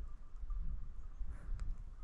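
Low, gusting wind rumble on the microphone.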